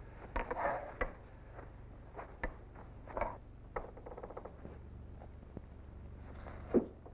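Footsteps and rustling through brush, with scattered sharp clicks and one louder thump near the end, over a low steady hum.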